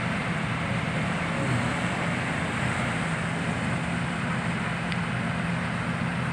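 Excavator's diesel engine running steadily at an even pitch, a low drone over a wash of background noise.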